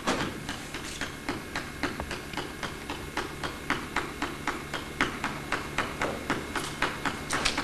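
Even, rapid tapping, about four sharp taps a second, with a few louder taps later on.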